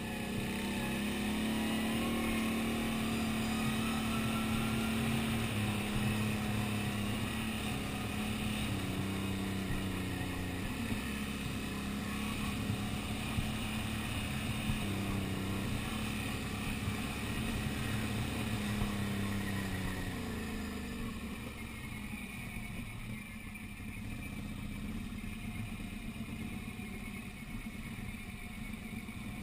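Quad bike (ATV) engine running under way on a dirt track, its note stepping up and down as the throttle opens and closes. About twenty seconds in it drops to a quieter, lower note.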